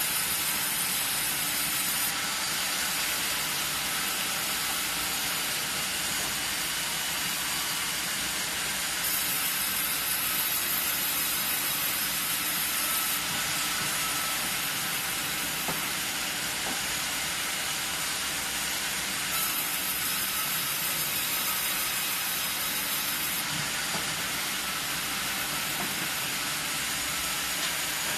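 Vertical log band saw with carriage, driven by a 22 kW main motor, running and sawing a log: a steady, even machine noise with a faint hum, holding at one level.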